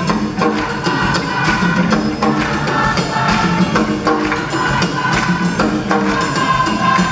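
Large choir singing together to a steady, sharp percussive beat.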